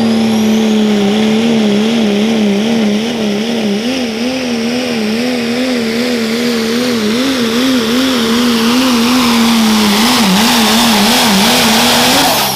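Dodge Ram pro stock diesel pulling truck's engine running flat out under load as it drags the sled, its note wavering quickly up and down. Near the end the pitch climbs briefly, then the engine sound cuts off.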